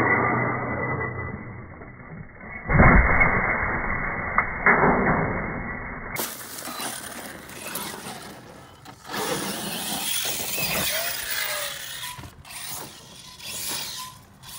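Arrma Infraction RC car coming off a wall and crashing onto dirt. There are two heavy knocks about three and five seconds in, muffled at first. After that, the electric motor whirs and its tires scrabble over the dirt, with a short rising motor whine near the middle.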